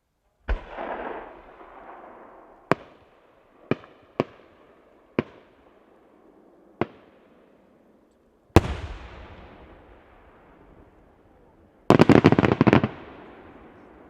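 Aerial fireworks shells bursting: a first boom with a long rolling echo, then several sharp single reports a second or so apart, a loud bang with a long echoing tail, and a rapid string of bangs lasting about a second near the end.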